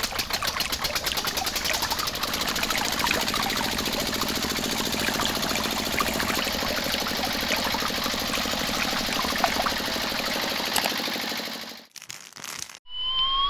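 A small machine runs with a fast, even clatter, then stops suddenly near the end. A rising whistle-like tone follows just before the end.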